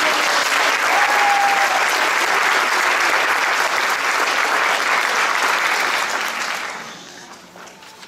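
Audience applauding, a dense steady clapping that dies away about seven seconds in.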